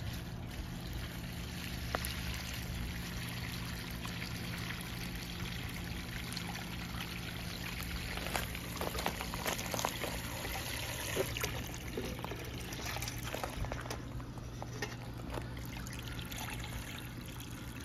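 Cold water from a garden hose wand pouring steadily into a pot of water, shocking a freshly boiled crab.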